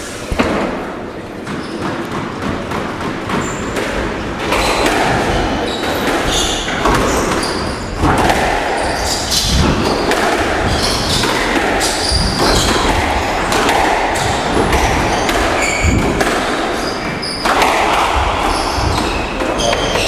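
Squash rally: the ball struck by rackets and smacking off the court walls, a string of sharp, irregularly spaced knocks echoing in the enclosed court.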